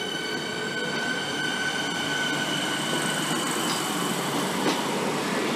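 Siemens Nexas electric train pulling out of the station and running away along the track: a steady rumble of wheels on the rails with a high, steady whine that fades over the first few seconds.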